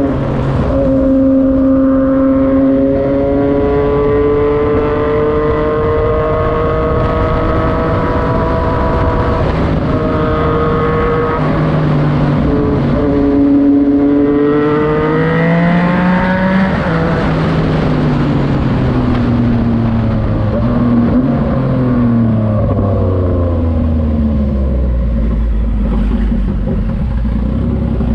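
Yamaha MT-09's three-cylinder engine through a Racefit Slash aftermarket exhaust, pulling under acceleration with its pitch climbing, broken by a few short drops at gear changes. Partway through the pitch falls steadily as the bike slows, ending at a low rumble.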